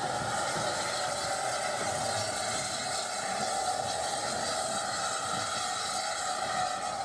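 Steady hiss and low rumble of an O1 class 0-6-0 steam locomotive running slowly, with no distinct exhaust beats.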